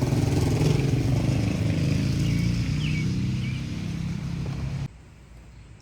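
A motor vehicle engine running, a low pitched hum that drifts slightly lower and fades, then cuts off suddenly about five seconds in.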